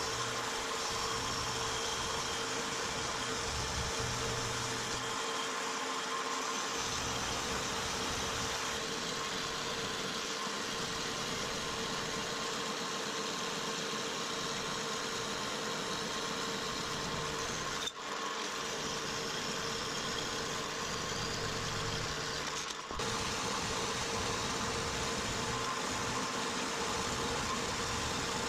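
Vertical metal-cutting bandsaw running steadily while a metal plate is fed into its blade and cut along layout lines, with a steady hum and a hiss from the blade in the cut. The sound drops out very briefly twice, near the middle and later on.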